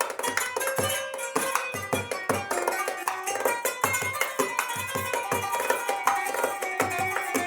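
Kanun (Turkish plucked zither) playing quick runs of plucked notes over a darbuka goblet drum's rhythmic pattern of deep strokes and sharp rim strokes, an improvised duet.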